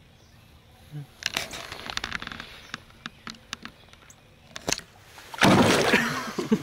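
A hollow-body popping frog lure worked on the water surface, with a run of short pops and splashes, then a loud, heavy splash about five and a half seconds in as a bass boils on the surface right beside the boat.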